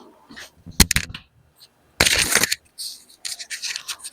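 Scratching and rubbing of parts being handled, in short bursts, with a few sharp clicks about a second in.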